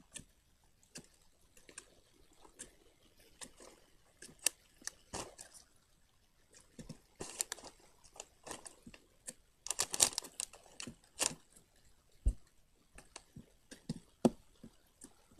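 Slime being squeezed and kneaded by hand, making irregular squelching, crackling pops and clicks, busiest about seven and ten seconds in.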